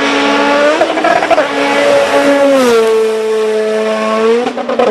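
Race car engine sound effect held at steady high revs, its pitch stepping down a little about two and a half seconds in, over a hiss.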